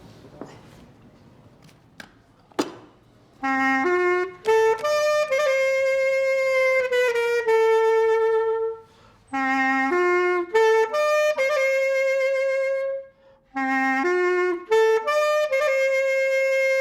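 A solo wind instrument playing the same short phrase three times, climbing in quick steps from a low note to a long held note that then drops slightly, with brief pauses between the phrases. A single sharp click comes just before the playing starts.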